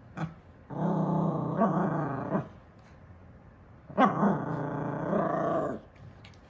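Silver toy poodle growling in displeasure at a toy: two long growls of nearly two seconds each, with a pause of about a second and a half between them.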